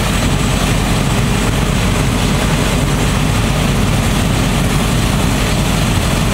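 Parked fire engine's diesel motor running steadily to drive its water pump, a loud, even drone with a deep rumble.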